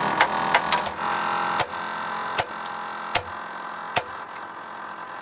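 A run of sharp knocks, quick at first and then slowing to about one every 0.8 s, over a steady mechanical hum that fades away.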